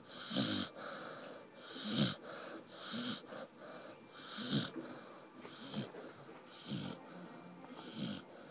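A sleeping puppy snoring, a short snore on each breath about once a second, at an uneven pace.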